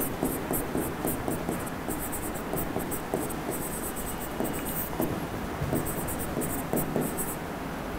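Pen stylus scratching and tapping on an interactive smart-board screen while handwriting, in quick irregular strokes with short pauses between letters.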